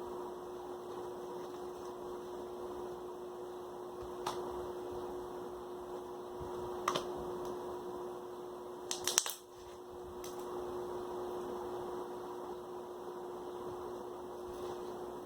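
Slime being mixed in a pot: a few faint clicks and taps over a steady background hum, with a short cluster of louder clicks about nine seconds in.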